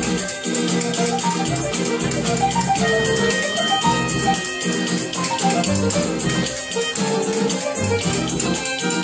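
Live acoustic band music: a hand shaker keeps a fast, even rhythm over plucked upright bass and guitar notes.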